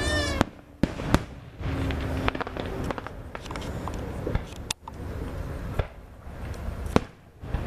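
Aerial fireworks shells bursting: about five sharp bangs at uneven intervals over a steady background noise.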